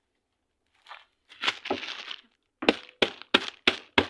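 A crinkling, tearing rustle, then from about two and a half seconds in a run of sharp, even knocks, about three a second, each with a brief ringing tone.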